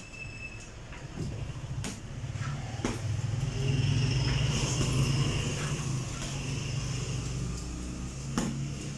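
Gloved punches thud into a hanging heavy bag a few times, around two and three seconds in and again near the end. Under them a motor vehicle's engine rumbles, swelling to its loudest about four to five seconds in and then fading.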